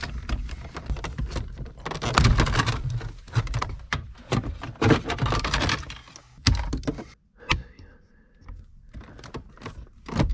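Locking pliers wrenching at the divider bar in a BMW E36 dash opening to break it out: a run of clicks, creaks and knocks as the bar is twisted, with two sharp knocks about six and a half and seven and a half seconds in.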